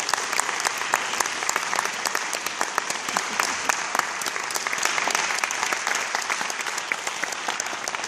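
Concert audience applauding at the end of a band piece. It is dense, steady clapping with sharp individual claps standing out.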